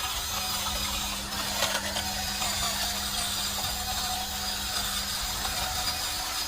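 Electric motors and gearboxes of a radio-controlled toy construction machine running steadily, a continuous mechanical whir and grind.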